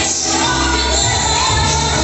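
Loud music with singing and a strong bass line, echoing in a large hall.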